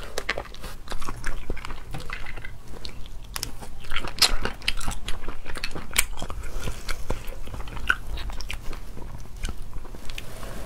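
Eating sea snails in spicy sauce: sucking the meat out of the shells and chewing it, a continual run of short wet smacks and clicks.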